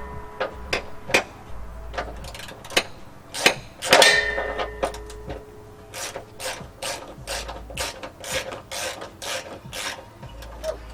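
Hand ratchet wrench with a 12 mm socket backing out a frame bracket bolt. The pawl clicks in scattered strokes at first, then in a quick even run of about three to four clicks a second through the second half. A ringing metallic clink comes about four seconds in.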